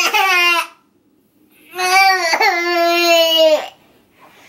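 Toddler crying: a short wail at the start, then, after a pause, one long wail of about two seconds held at a steady pitch.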